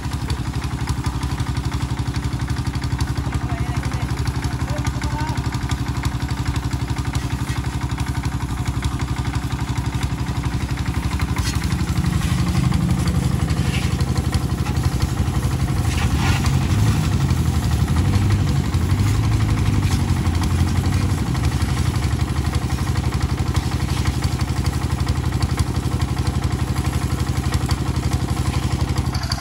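Pressure washer running with a steady hum from its motor-driven pump, with the hiss of the water jet spraying onto a motorcycle; slightly louder in the middle.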